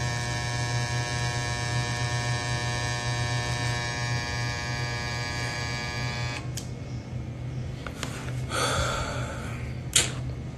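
Electric hair clippers buzzing steadily, held up by the head. About six and a half seconds in, the higher part of the buzz stops with a click and only a low hum remains, followed by rustling and a sharp knock near the end.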